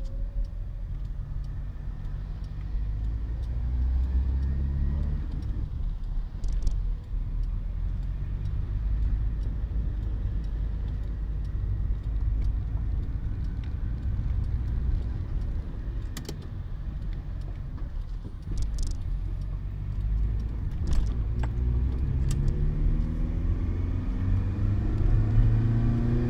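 Cabin sound of a Citroën BX 14 RE driving in city traffic: its small four-cylinder petrol engine rises in pitch as the car accelerates, once near the start and again near the end. A few sharp clicks sound over the steady road noise.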